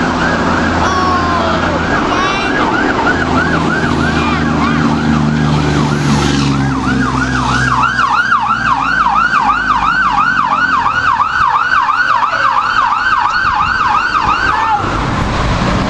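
Fire engine siren on a fast yelp, rising and falling about three times a second, over the truck's engine running low as it passes; the yelp grows clearer about halfway through and cuts off suddenly near the end.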